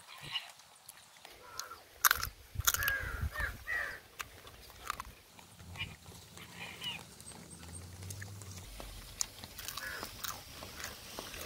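Eating masala-cooked crab: scattered sharp cracks and crunches of shell, with slurping and lip-smacking as meat is sucked out of the legs.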